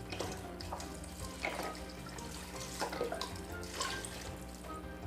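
Chicken stock poured from a carton into an Instant Pot, splashing and glugging unevenly as it fills the pot of simmering ingredients.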